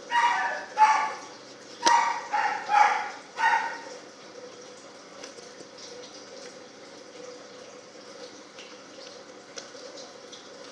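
A small dog barking, about six quick, high-pitched yaps in the first few seconds, then it stops.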